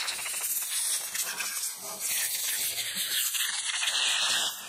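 Compressed-air blow gun hissing as it blows over a primed tailgate, cleaning the surface before a guide coat goes on.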